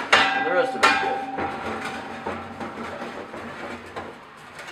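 Steel exhaust pipe clanking as it is moved and turned on a steel welding table: two sharp metallic knocks under a second apart, the second leaving a ringing tone that dies away over about two seconds.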